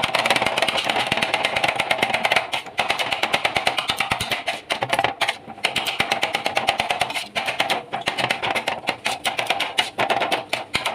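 Metal spatulas chopping chicken on a flat iron griddle, kothu-style: a fast, continuous run of clanging strikes with a metallic ring.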